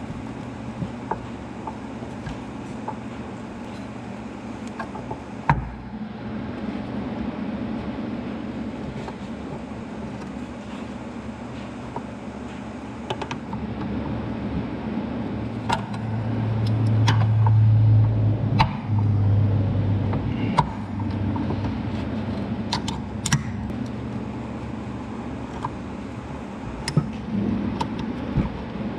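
Pliers clicking and scraping against the rusty steel control-lever linkage of a Clark forklift as its pins are worked loose: a few sharp metal clicks over a steady low hum. A little past halfway the hum swells louder for a few seconds.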